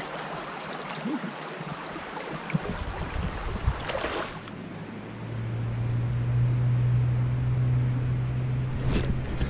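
Shallow creek water running, with a brief louder rush about four seconds in. From about five seconds a steady low hum sits under the water sound.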